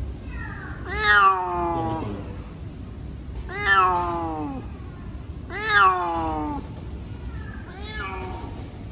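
Cat shut in a mesh pet carrier meowing loudly in protest: three long, drawn-out calls, each falling in pitch, about two seconds apart, then a fainter call near the end.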